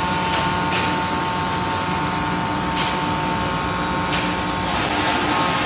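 Scragger-RS2 scragg mill sawing aspen logs, its sawing motor driving two saw spindles: a steady high whine over a loud hiss, with a few sharp knocks. The hiss eases near the end while the whine carries on.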